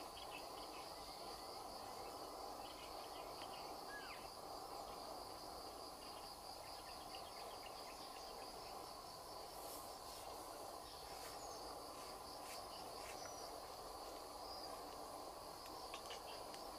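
Faint, steady trilling of insects in the riverside vegetation, with a single short bird chirp about four seconds in.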